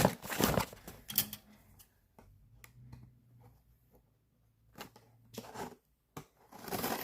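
Plastic snack packaging being handled and opened, with crinkling rustles and small clicks, strongest in the first second or so and again near the end, and a quieter stretch between.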